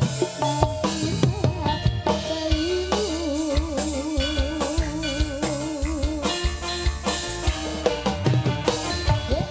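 Javanese jaranan dance music: drums keep a busy rhythm, and a sustained melody line wavers up and down for a few seconds in the middle.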